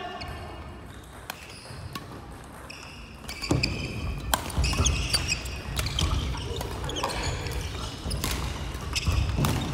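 Badminton rally on a wooden gym floor: sharp racket strikes on the shuttlecock and thudding footsteps, with short high shoe squeaks. It is sparse at first and grows louder and busier about three and a half seconds in as the rally gets going.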